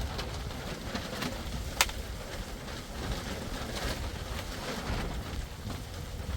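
Stormy wind and rain, with a low rumble of wind on the microphone and scattered light taps; one sharp click a little under two seconds in.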